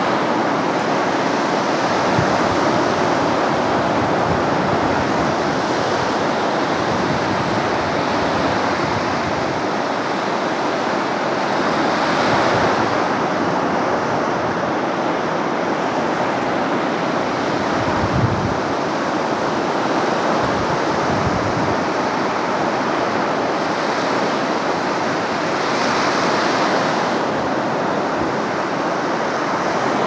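Storm surf on the Black Sea breaking on a sandy beach: a steady rush of waves that swells as bigger breakers crash about twelve seconds in and again near the end, with a couple of low wind thumps on the microphone.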